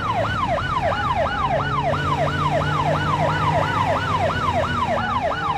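Toy police car's electronic siren wailing fast, about three rising-and-falling sweeps a second, over a steady hum.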